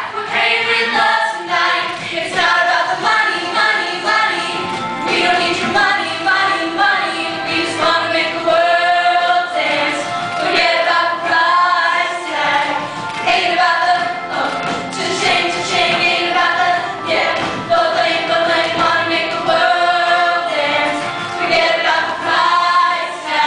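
An ensemble of young voices singing a song together in chorus.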